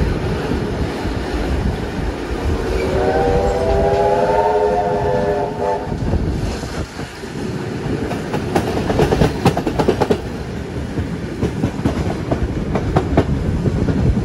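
Heritage steam-hauled passenger train rumbling along, heard from inside a carriage. About three seconds in, a train whistle sounds for about three seconds, rising slightly in pitch. Later, the wheels click rapidly over rail joints and points.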